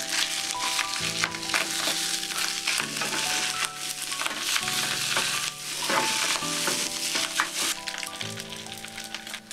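Fried rice sizzling in a hot nonstick pan as it is stir-fried, with the spatula scraping and tossing the rice; the sizzling eases near the end. Background music plays underneath.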